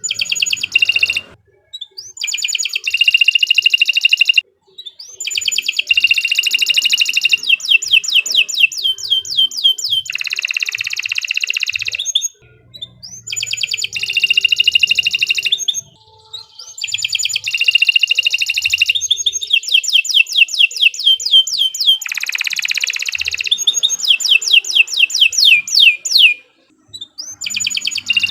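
Domestic canary singing long phrases of fast repeated notes and trills, broken by brief pauses every few seconds.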